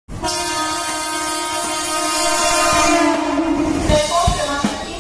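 Mumbai local train horn blowing one long steady note for about three seconds over a hiss, dipping slightly in pitch as it dies away. About a second later, music with a drum beat starts.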